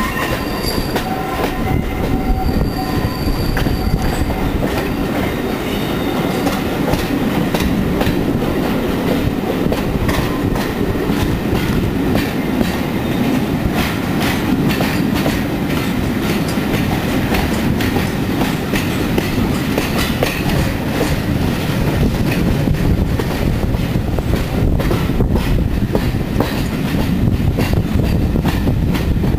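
Railway coaches of a steam-hauled train rolling along, heard from a carriage window. The wheels click over the rail joints and pointwork, with a brief high wheel squeal on the curve in the first few seconds.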